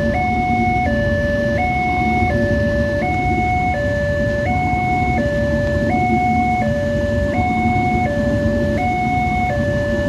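Railroad level-crossing warning siren, a standard electronic two-tone siren, steadily alternating between a high and a low note about every three-quarters of a second. Under it is the low rumble of a passenger train's coaches rolling past over the crossing.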